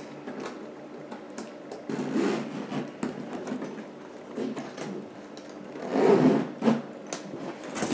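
A Louis Vuitton Keepall 55 monogram-canvas duffel bag being handled: the stiff canvas rubbing and rustling in uneven bursts with a few sharp clicks, loudest about six seconds in.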